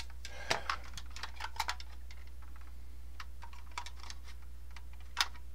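Scattered light clicks and taps of hard plastic and AA batteries as batteries are fitted into the battery compartment of a 1978 Kenner X-wing toy, with one sharper click about five seconds in. A low steady hum runs underneath.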